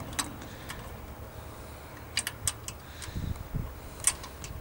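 Scattered light clicks and taps from hands handling a twin-barrel carburetor and its wires, with a small cluster of clicks near the middle and a sharper click near the end.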